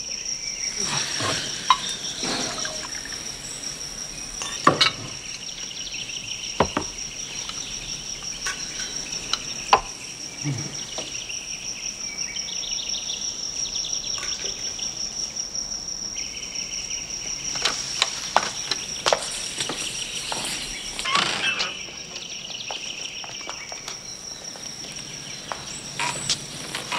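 Steady high-pitched cricket chirring with other insect trills coming and going, over a faint background, broken by scattered light clicks and knocks.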